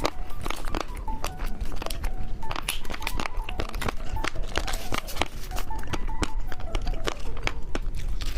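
Plastic snack wrapper crinkling and tearing as it is handled and opened, a dense run of sharp crackles, over a soft background music melody.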